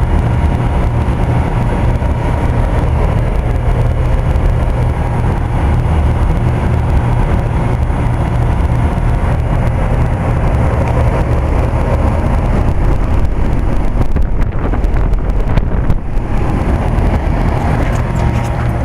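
1990 Bryant 5-ton straight-cool central air conditioner's condensing unit running steadily: a constant low hum under even fan air noise.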